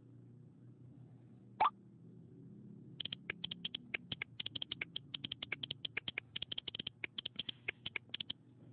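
iPhone incoming-message pop, one short rising blip, about one and a half seconds in. From about three seconds in, rapid iPhone keyboard clicks as a long reply is typed, stopping shortly before the end.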